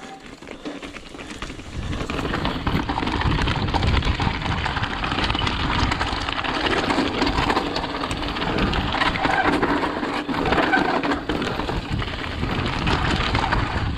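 Mountain bike riding down a rough dirt trail: tyre noise and a dense rattle of knocks and clatter from the bike over the ground. It gets louder about two seconds in.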